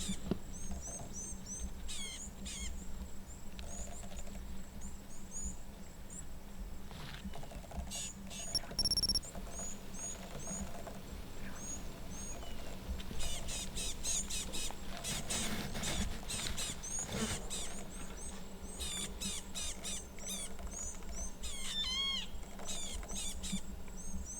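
Outdoor ambience full of repeated high-pitched chirps and squeaky calls, some in quick bursts, with a brief steady whistle-like tone about eight seconds in.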